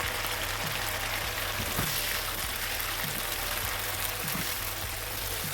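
Diced chicken breast frying in hot palm oil in a frying pan: a steady sizzle with fine crackling.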